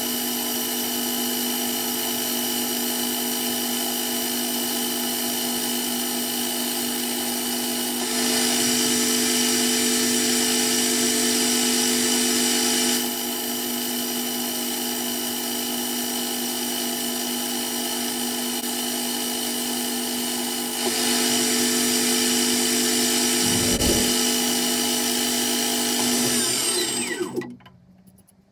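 Myford Super 7 Connoisseur metal lathe running under power with a steady whine from the motor and drive, its level stepping up and down a few times. It stops suddenly near the end.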